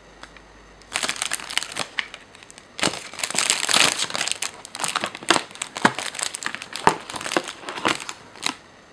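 Paper leaflets and packaging being handled, with rustling and crinkling in irregular bursts and small sharp taps. It starts about a second in and is busiest around the middle.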